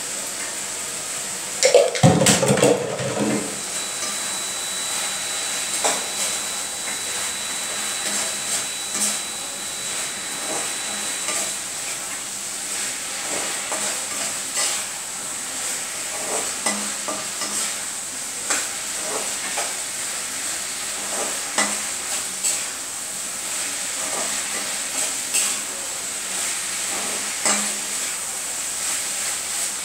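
Cauliflower tomato curry sizzling in a frying pan while a spatula stirs and scrapes through it, with frequent light clinks against the pan. A louder clatter about two seconds in.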